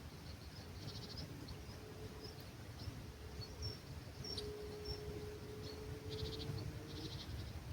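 Dawn olive-grove ambience: short pulsed chirps come a few times, about a second in and again near the end, with brief high bird notes between them, over a low rumble of breeze. A faint steady hum comes in about halfway through.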